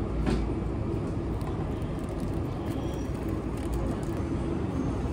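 Steady low hum and rumble of indoor shop ambience, with a few faint ticks of handling in the first couple of seconds.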